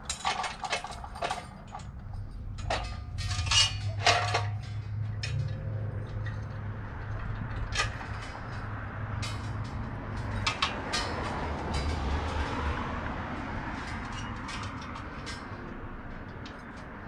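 Sharp clinks and knocks of hard objects being handled during the first few seconds, over a steady low engine hum; later a car drives past on the road, swelling and fading over a few seconds.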